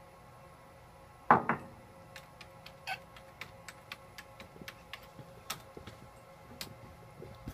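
A ceramic coffee mug set down on a desk with a double clunk about a second in, followed by computer keyboard keys clicking at a steady pace, about three to four clicks a second.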